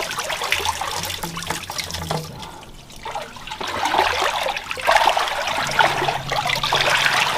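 Water splashing and trickling as someone wades through a shallow flooded tunnel. It dips about a third of the way in and then grows louder.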